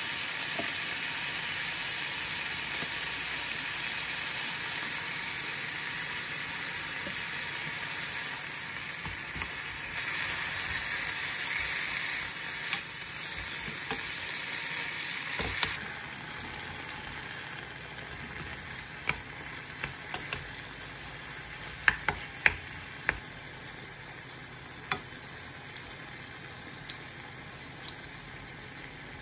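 Kimchi and meat sizzling in a hot nonstick wok as they are stir-fried. The sizzle eases a little past halfway, and sharp clicks of the utensils knocking against the pan come through in the second half.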